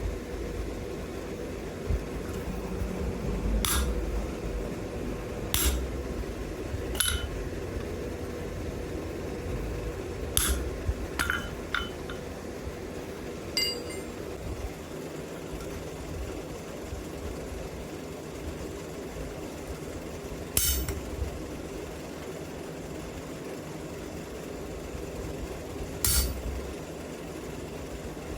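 Small hammer tapping a chisel or punch into cold wrought iron to lay out a design: single sharp metallic clinks a few seconds apart, some in quick pairs, over a steady low shop hum.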